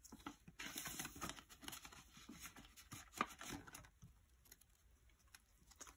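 Faint rustling and crinkling of paper bills and the binder's clear plastic envelope pages being handled and turned, with scattered light ticks and one sharper tick about three seconds in.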